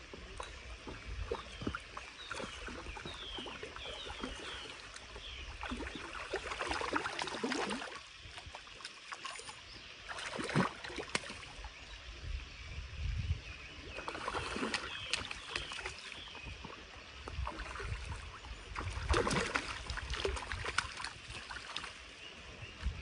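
A hooked fish thrashing and splashing at the water's surface in several bursts as it is reeled to the bank and netted.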